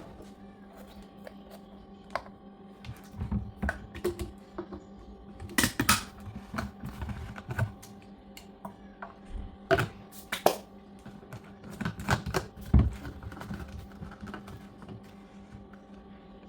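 Irregular clicks, taps and knocks of small objects being handled, clustered in a few busy spells, over a steady electrical hum.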